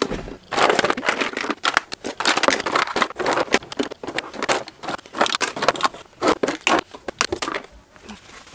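Makeup products (lipsticks, tubes, pencils and compacts) clattering and rattling against each other as they are scooped out of a drawer by the handful and dropped into a shoebox. The clatter thins out near the end, once the drawer is empty.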